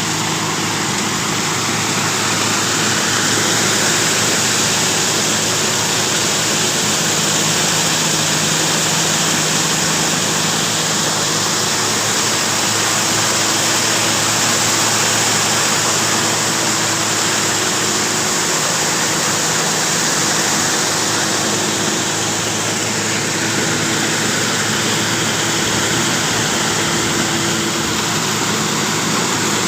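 Concrete-pouring machinery running steadily: an engine's constant hum under a loud, even rush of noise.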